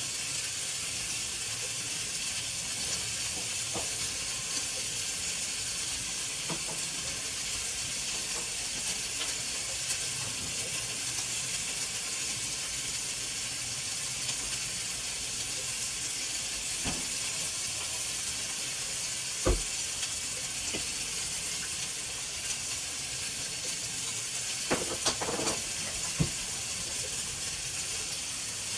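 Steady hiss of cooking on the stove, with a single light knock about two-thirds of the way in and a few quick clicks of utensils near the end.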